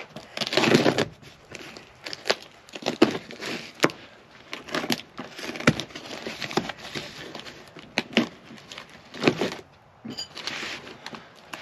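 Cardboard shipping box being opened by hand: tape and cardboard tearing, with paper and flaps crinkling and scattered sharp clicks and knocks.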